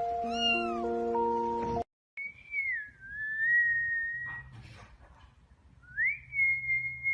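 Two long, high-pitched animal cries: the first dips and then levels off, the second rises and is then held. Before them, a short stretch of gentle music with one brief high call, which breaks off suddenly.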